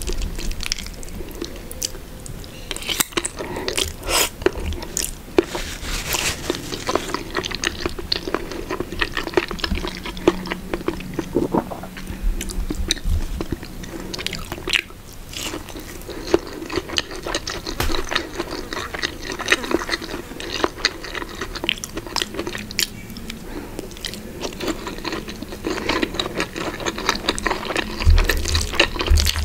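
Close-miked eating sounds: chewing and biting into spaghetti carbonara and sausage, a dense run of small wet clicks and smacks.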